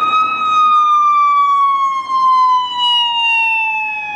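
An electronic siren wail: one clear tone slowly and steadily falling in pitch.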